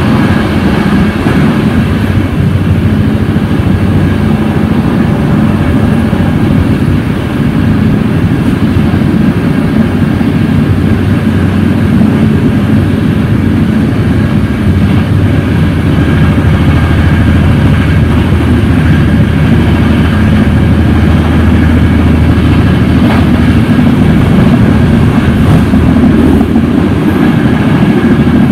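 Intercity passenger train running at speed, heard from its tail end: a loud, steady rumble of wheels on rails.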